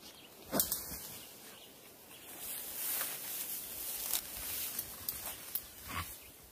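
Footsteps and rustling through tall grass and brush as someone walks a bush trail, with a sharp crack about half a second in and another near the end.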